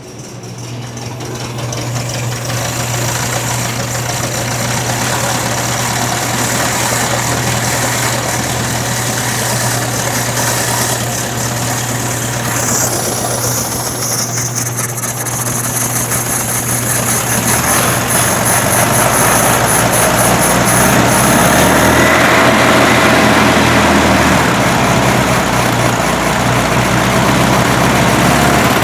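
1961 VW Beetle's air-cooled flat-four engine running after being fired up, growing louder in the second half.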